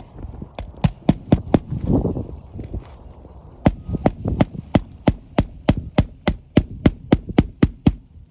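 Hammer driving nails into a roof shingle: a few scattered blows, then a steady run of about three to four blows a second for several seconds.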